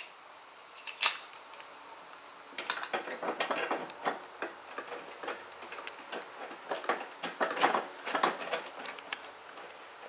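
Ratchet wrench clicking in short runs as the idler pulley bolt on a riding-mower deck is tightened, after a single sharp metal clink about a second in.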